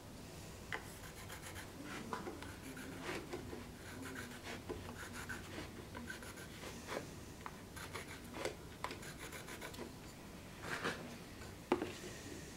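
Pencil scratching on a wooden board as lines are marked along a steel square, with light taps and a sharper click near the end.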